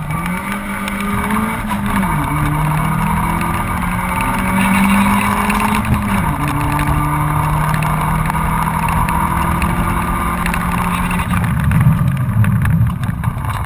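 Honda Civic 1.3's four-cylinder engine heard from inside the cabin, running hard at high revs. The pitch drops sharply at upshifts about two and six seconds in, then climbs and holds steady.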